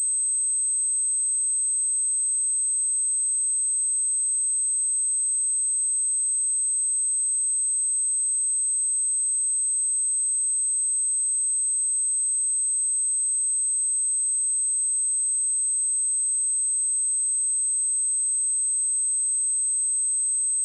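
A pure 8233 Hz sine-wave test tone, one steady high-pitched whistle at constant level, for checking speakers or headphones.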